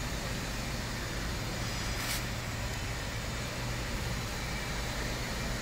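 Kia Bongo III truck engine idling with a steady low hum, with a brief hiss about two seconds in.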